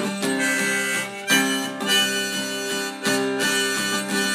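Harmonica playing a melody fill over steadily strummed acoustic guitar, in the break between sung lines of a folk-blues song.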